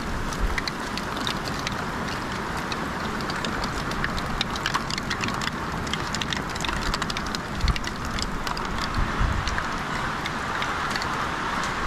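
Steady rain: an even hiss with many sharp ticks of drops striking close by, and a few low thumps.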